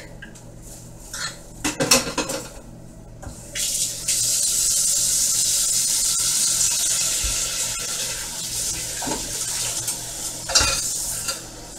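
Dishes and utensils clinking as they are put into a kitchen sink, then a tap running steadily into the sink from about three and a half seconds in, with another clink near the end.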